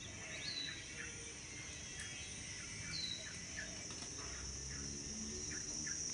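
Outdoor ambience: a steady high-pitched insect drone with birds chirping. A short falling chirp comes about half a second in and again about three seconds in, among quicker scattered chirps.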